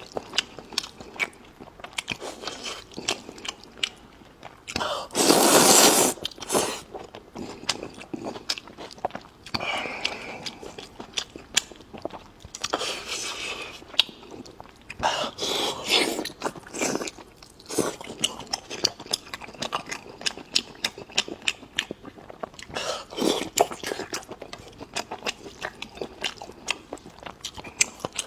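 Close-miked eating: continuous wet chewing with many quick clicks, broken by several louder slurps lasting about a second each.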